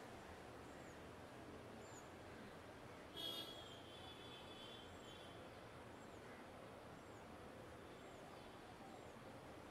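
Faint, steady hum of distant city traffic with small birds giving short, high, falling chirps about once a second, and one louder, brief call about three seconds in.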